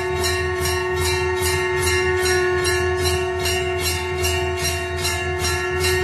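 A bell rung rapidly and evenly, about three to four strokes a second, over one long steady held note.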